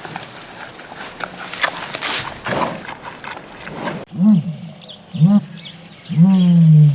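About four seconds of rough, crackly noise with scattered clicks, then an abrupt change to three low animal calls, each arching up and falling, the last the longest, with faint higher chirps behind.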